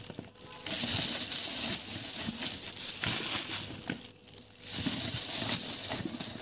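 A hand in a plastic glove pressing olives, carrot, pepper and celery down into a jar: crinkling plastic with the rustle and knock of the packed vegetables. It comes in scratchy bursts, with short pauses about half a second in and about four seconds in.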